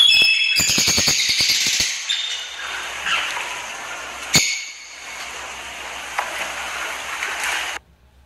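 African grey parrot calling: a short high whistle at the start and another about halfway through, with a quick run of clicks about a second in. Under the calls runs a steady high hiss, and it all stops abruptly near the end.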